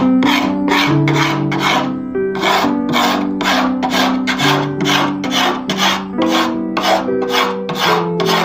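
Hand rasp scraping back and forth along the edge of a wooden tray in quick, even strokes, about three a second, with a short pause about two seconds in. Background music plays underneath.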